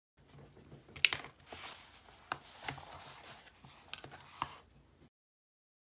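Close-up handling of a paperback book's pages: soft paper rustling with a few sharp taps and clicks, the loudest about a second in.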